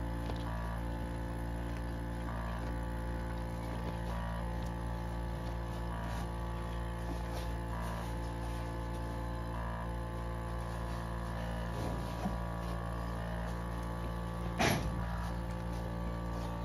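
Portable bucket milking machine running: a steady pump hum with a soft pulsing beat about every two seconds, while its teat cups are being fitted to a beef cow's teats. One short, sharp noise near the end.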